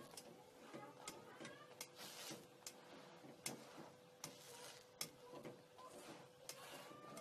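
Faint sizzling and crackling of oil under a paratha frying on a hot iron tawa, with sharp irregular pops about once a second and brief louder sizzles as a spatula presses the paratha.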